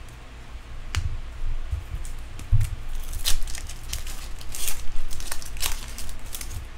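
Baseball cards handled, with a light knock about a second in and a low thump before the three-second mark. Then the foil wrapper of a Bowman card pack crinkles and tears in a run of short crackles as it is ripped open.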